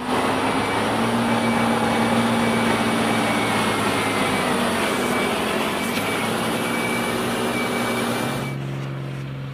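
Mercedes-Benz Arocs tipper truck's diesel engine running as the truck drives past, a steady engine drone with a faint high whine. About eight and a half seconds in the higher noise drops away and only the low engine hum remains.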